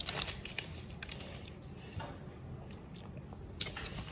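Chocolate bar's paper wrapper being handled, crinkling softly with a few faint crackles.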